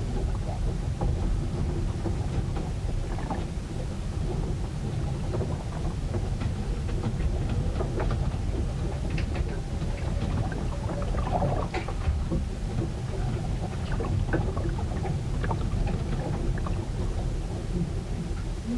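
Storm noise recorded aboard a ship: a steady low rumble with many small irregular knocks, taps and splashes on top.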